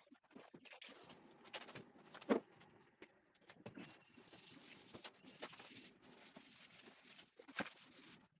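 Irregular light clicks, taps and scraping from hand work on wooden chair parts, with one sharper knock a little over two seconds in.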